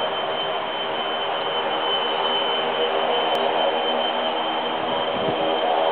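Boeing 737-300's twin CFM56-3 turbofan engines running at the start of the take-off roll: a steady jet noise with a high whine, slowly growing louder.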